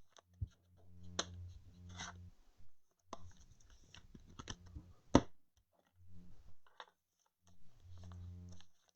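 Trading-card packaging and cards being handled: crinkling and scattered clicks, with one sharp snap about five seconds in.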